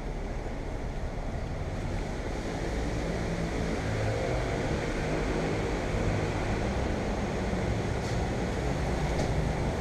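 Steady city street traffic rumble, with wind buffeting the action camera's microphone.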